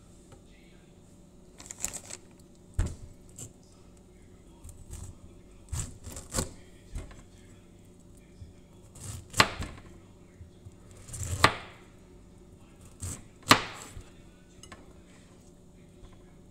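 Small kitchen knife slicing through a peeled pineapple and knocking on a stone countertop, in about ten irregular strokes, the loudest about halfway through and again around two-thirds in.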